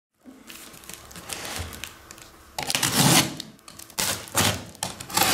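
Box cutter cutting and scraping at brown packing tape on a cardboard box, with handling knocks on the cardboard. The strokes are short and scratchy, and they get louder and busier from about halfway in.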